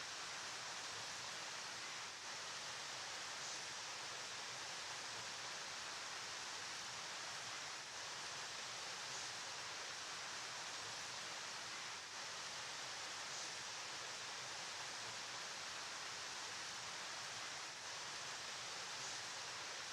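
Flowing river water: a steady, even rushing hiss with no let-up.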